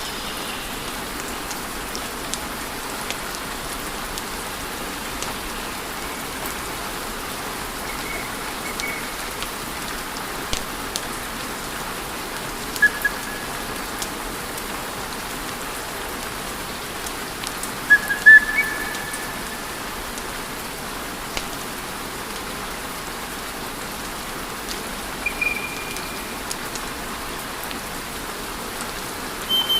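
Wood fire burning in a fireplace: a steady crackling hiss with scattered sharp pops, the loudest cluster about two thirds of the way through. A few short high whistles sound from the burning logs.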